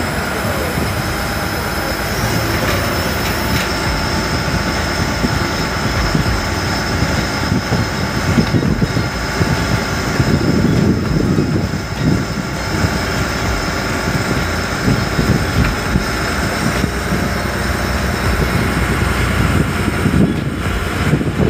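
Parasailing speedboat's engine running steadily while the boat is under way, with wind buffeting the microphone in gusts, strongest from about eight to thirteen seconds in.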